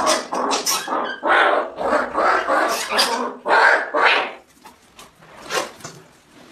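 Kitten growling in a series of harsh bursts while holding a rodent it has caught, a guarding-prey growl; the growling stops after about four seconds.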